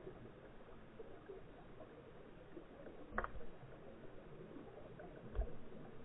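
Faint, muffled underwater hiss picked up through a camera's waterproof housing, with a sharp knock about three seconds in and a low thump about two seconds later.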